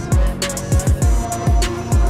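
Background music with a heavy beat: several deep bass drum hits that slide down in pitch, over ticking cymbals.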